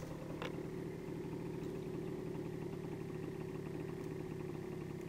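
Small 80 cc quad (ATV) engine idling steadily.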